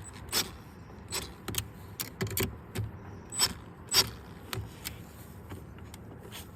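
A string of sharp metallic clicks and clinks, about a dozen spread unevenly, the loudest two a little past the middle: hand tools and mounting hardware being handled while the tow mirror is bolted to the door.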